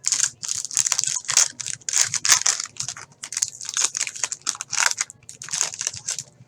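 Plastic packaging crinkling and rustling in quick, irregular crackly bursts as sports card packs and cards are unwrapped and handled.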